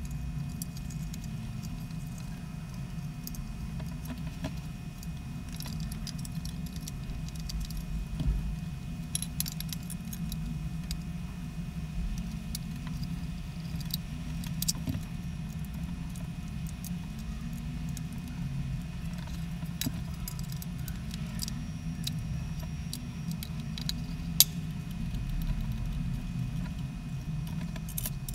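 Small plastic parts of a Bosch GAA18V-24 USB charger adapter clicking and rattling as it is put back together by hand, its circuit board pressed back into the housing, with a few sharper snaps. A steady low hum runs underneath.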